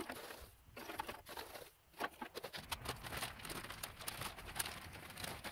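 Charcoal briquettes poured into the steel firebox of an offset smoker, clattering onto the grate in a dense run of small knocks from about two seconds in.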